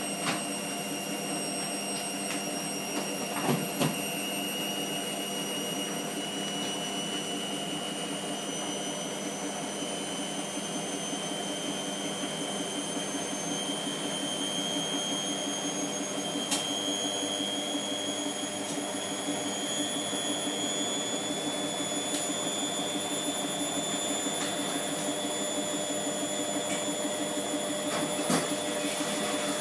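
Hotpoint WMF720P washing machine spinning with its drum full of suds: a steady motor whine whose pitch creeps slowly upward as the drum gathers speed, with a couple of brief knocks.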